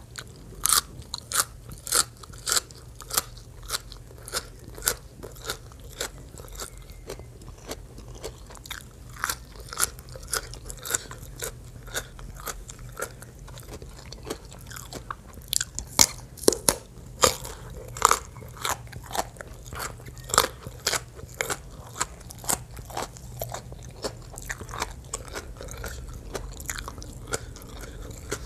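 Close-miked crunching and chewing of raw vegetables, green herb sprigs and a small purple eggplant, dipped in spicy papaya salad. Sharp, crisp bites come one or two a second.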